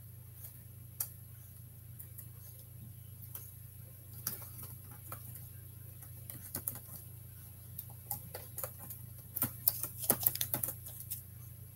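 Chick inside a pipped chicken egg pecking at its shell: scattered light ticks and taps, with a quick run of the loudest taps about ten seconds in. A steady low hum runs underneath.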